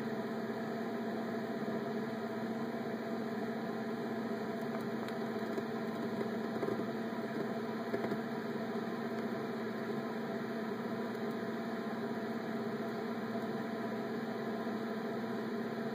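Small terrarium water pump humming steadily with an even, unchanging drone.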